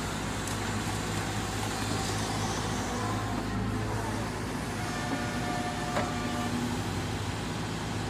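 Diesel engine of a Sany SY155W wheeled excavator running steadily as the machine works, a continuous low drone. A few brief higher tones and a click come in about five to six seconds in.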